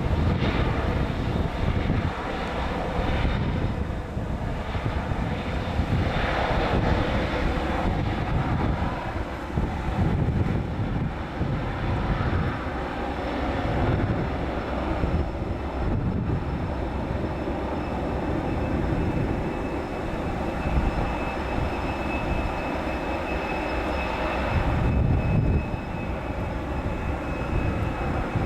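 Airliner engines running, a continuous rumble that swells and fades a little, with a steady high whine joining about two-thirds of the way through.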